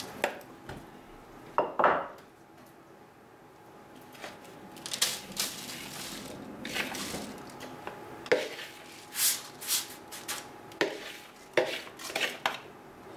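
Metal spoon scraping and knocking against a plastic bowl while buttery biscuit crumbs are spooned out into a springform pan, in irregular clicks and short scrapes.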